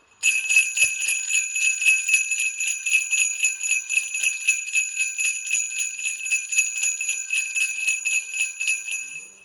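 Handheld sleigh bells on a handle shaken in a quick, steady rhythm, a continuous run of bright jingling strokes that fades out just before the end.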